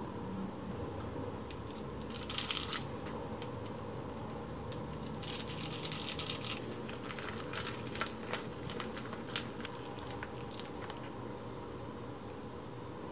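Small plastic sauce packets crinkling as they are handled and squeezed over a bowl, in two spells, then scattered light clicks of chopsticks against a ceramic bowl as sticky natto with kimchi and flour is stirred. A faint steady hum lies underneath.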